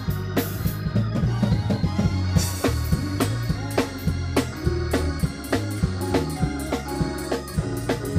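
Live gospel band playing, led by Hammond organ, with bass guitar holding low notes, a drum kit keeping a steady beat, and keyboard.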